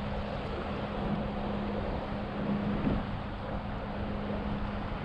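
Steady engine hum of a motorboat under a haze of wind and water noise.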